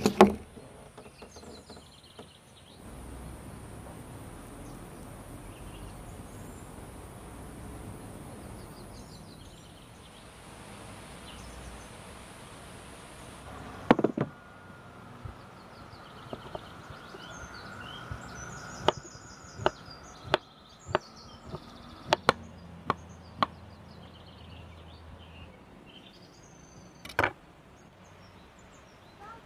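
Scattered, irregular sharp knocks and taps: the loudest right at the start, another about halfway, and a quick uneven run of them a little over two-thirds in. A steady high buzz runs under the first half and stops about halfway.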